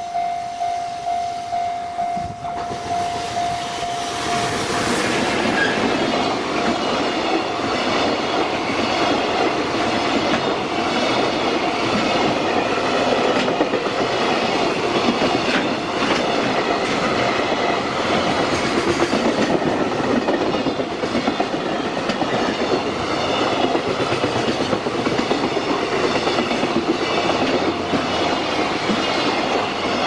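A level-crossing warning bell rings in a steady beat. From about two seconds in, a JR Freight EF210 electric locomotive and a long train of container wagons pass close by, their wheels clattering over the rail joints without a break.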